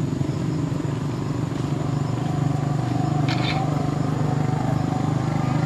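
A motor vehicle engine idling steadily close by, a low even drone. A brief high squeak sounds about three seconds in.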